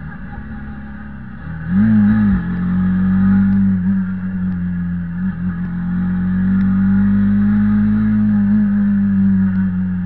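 Kymco Quannon 125's single-cylinder four-stroke engine running on the move. About two seconds in it gets markedly louder, its pitch wobbling briefly, then it holds a steady high drone.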